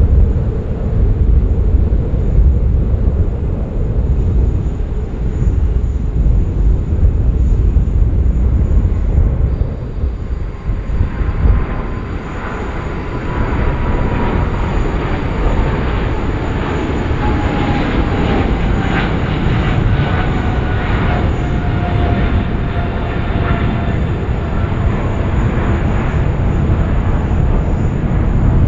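Boeing 777-300ER's GE90 turbofan engines at takeoff power: a heavy low rumble on the takeoff roll. After liftoff a whine over the roar slowly falls in pitch as the jet climbs away.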